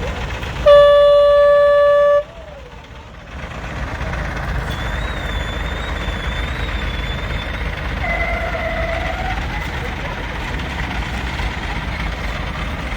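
A truck horn sounds one steady blast of about a second and a half near the start. A truck engine then runs steadily at idle, a low rumble.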